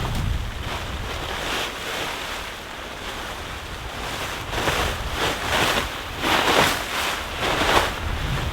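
Blizzard wind gusting, buffeting the microphone with a low rumble, with a run of short loud rushing gusts in the second half.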